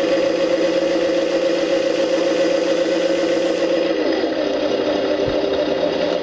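Tamiya Scania RC truck's electronic sound module playing a truck diesel engine sound through its speaker: held at raised revs, then falling back toward idle about four seconds in. A single click comes about a second after the revs drop.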